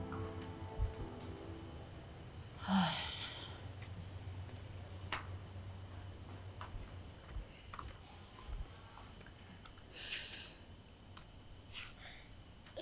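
Crickets chirping in an even pulse of high notes, about four or five a second. Over them come a few soft knocks and two short rustling bursts, one about three seconds in and one near the end.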